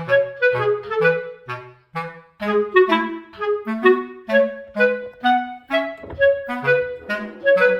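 Background music: a clarinet-like woodwind melody playing a lively run of short notes over a bass line.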